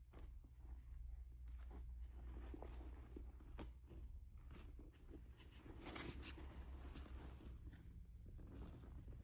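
Faint handling sounds of a handbag and its packaging: scattered light clicks and rustles, with a short louder rustle about six seconds in, over a low steady hum.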